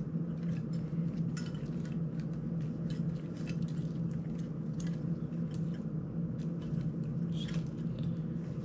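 Small, irregular clicks and taps of fingers handling the plastic ducted frame and small parts of an FPV drone during reassembly, over a steady low hum.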